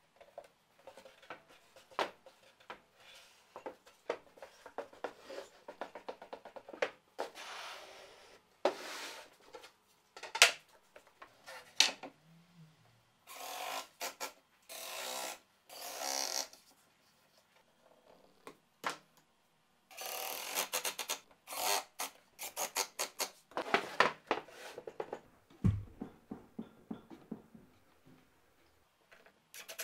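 Plywood parts being handled and fitted together by hand: scattered knocks and clicks of wood on wood, with several bursts of sliding and rubbing lasting a second or two.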